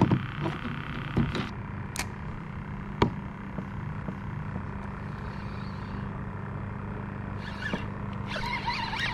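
Fishing gear handled in a plastic kayak: a few sharp knocks and clicks in the first three seconds, over a steady low hum.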